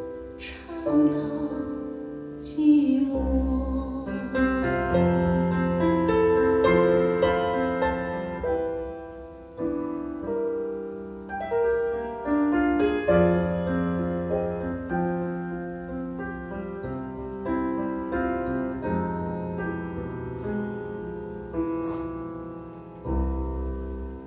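Piano-led Mandarin ballad music played back through M&G Audio V8F floorstanding speakers driven by a tube amplifier, with held chords and single notes fading away in turn.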